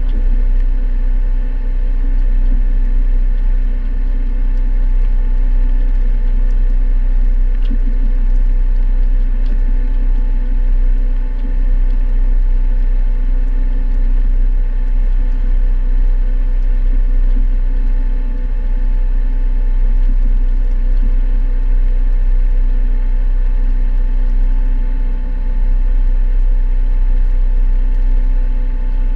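A sailboat's inboard engine running at a steady speed while motoring under bare poles: a constant hum over a deep low rumble.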